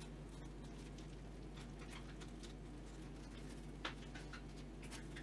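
Faint soft rustles and small crackles of a whole-wheat flatbread shawarma wrap being squeezed and folded closed by hand, with one sharper tick about four seconds in, over a steady low hum.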